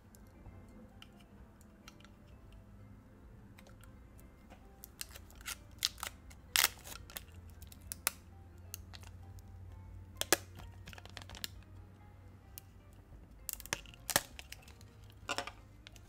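Clear protective plastic film crinkling and crackling as it is peeled off a handheld vacuum cleaner part, in sharp irregular crackles that bunch up over the second half, over soft background music.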